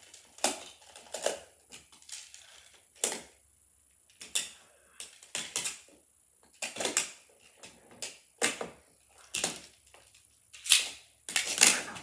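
Plastic magnetic building blocks clicking and clacking as they are handled and snapped together, sharp clicks at irregular intervals, roughly one a second.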